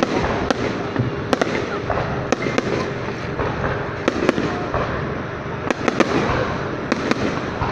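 Fireworks display going off: about a dozen sharp bangs at irregular intervals, some in quick pairs, over a continuous noisy din.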